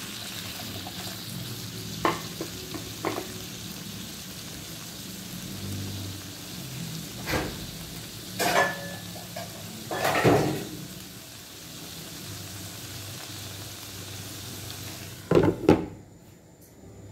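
Chopped carrots, chayote and meat sizzling in a frying pan with a steady hiss while a spatula stirs them, knocking against the pan several times. Near the end a glass lid clanks down twice and the sizzle goes muffled.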